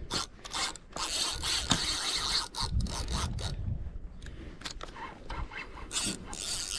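Spinning fishing reel being wound and handled: an uneven mechanical noise broken by short clicks, dipping briefly a little past the middle.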